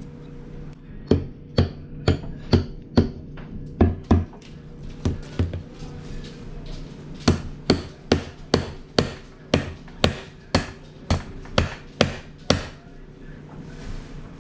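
A hammer struck repeatedly, about twenty sharp blows in two runs at roughly two a second, with a short pause around the middle, as part of tearing down an engine.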